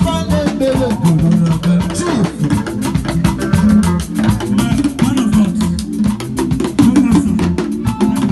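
Latin dance music in a salsa style, with quick steady percussion, drums and guitar.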